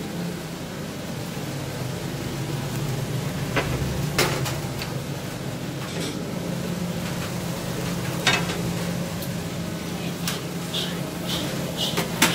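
Restaurant kitchen at work: a steady low hum of ventilation, with scattered clanks and clinks of metal utensils and pans, the loudest about four and eight seconds in.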